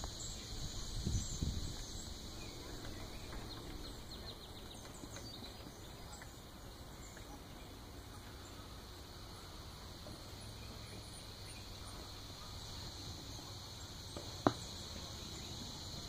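Outdoor ambience of a steady high insect drone with a few faint high bird chirps. A low rumble about a second in and a single sharp click near the end.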